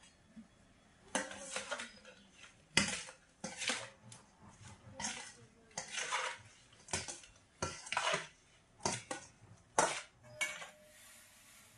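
Steel spoon stirring small raw fish in a stainless steel bowl, clinking and scraping against the bowl's sides in a run of strokes, one or two a second.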